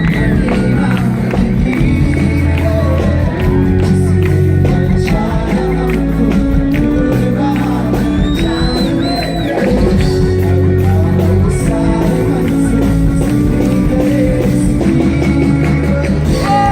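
Loud band music with a steady beat and a singer, heard from the dance floor in front of the stage.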